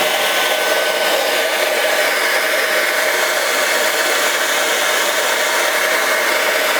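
Suction fan motor of an iCLEBO O5 robot vacuum running steadily in turbo mode: an even, loud whoosh of rushing air with no change in speed.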